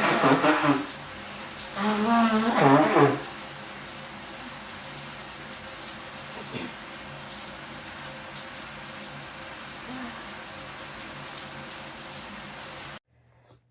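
A woman blowing her nose hard twice, each a pitched, honking blow of about a second, the second a little longer. A steady hiss runs underneath and cuts off suddenly near the end.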